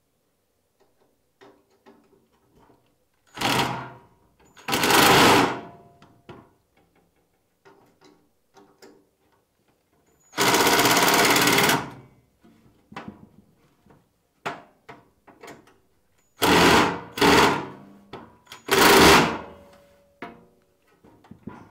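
Ryobi cordless impact driver hammering screws into a sheet-steel wall cabinet in five short runs, the longest about a second and a half near the middle. Small clicks and knocks come between the runs.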